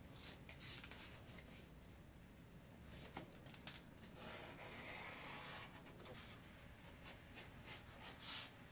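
Fine drawing pen scratching faintly on paper in short strokes, with one longer drawn line about four to five seconds in and a few light taps of the pen.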